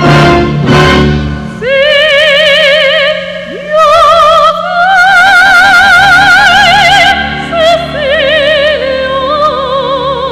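Background music: a solo operatic voice sings long, high held notes with a wide vibrato over a low sustained accompaniment.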